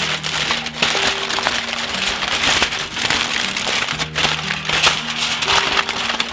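Aluminium foil crinkling and crackling as hands press and smooth it into place as a cover, over background music with held low notes.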